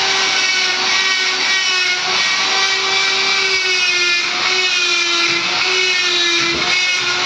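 Handheld corded electric grinder running with a steady whine, its bit grinding against the surface of a painted statue; the pitch wavers slightly as it bears on the work.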